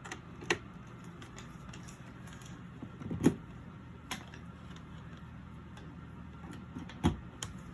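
Scattered sharp clicks and knocks, about five of them, from handling a small plastic personal air cooler and its charging cable, likely as it is plugged in and switched on. They sit over a low steady hum, and the loudest two fall about three seconds in and near the end.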